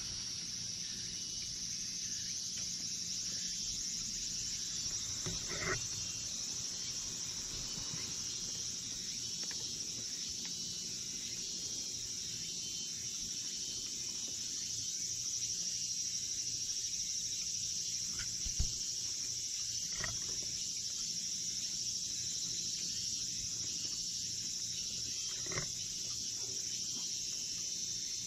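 Steady high-pitched drone of insects singing in chorus. A few faint knocks and one short low thump break in about two-thirds of the way through.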